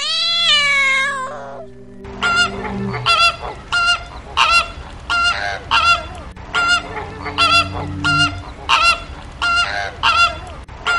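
A cat's meow ending in the first second and a half, then a goose honking over and over, about two honks a second.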